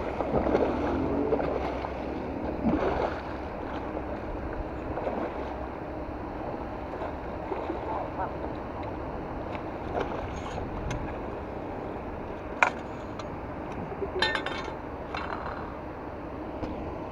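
A large red-tailed catfish thrashing and splashing at the water's surface as it is scooped into a landing net, the splashing heaviest in the first few seconds. A few sharp knocks and clatters follow near the end.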